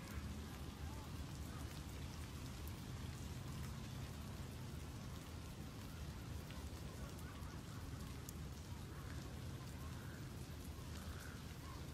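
Steady rain falling, a patter of many small drop ticks over a steady low rumble.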